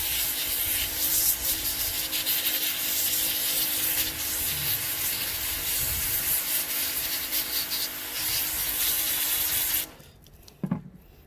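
Pressure washer spraying a jet of water onto a rubber brake-caliper dust cap: a steady hiss with the pump's hum beneath it. It cuts off suddenly about ten seconds in, followed by a single faint click.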